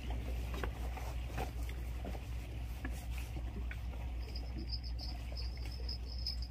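Faint outdoor ambience by the water: a low steady rumble with scattered light clicks, and a thin, steady high tone through the last two seconds.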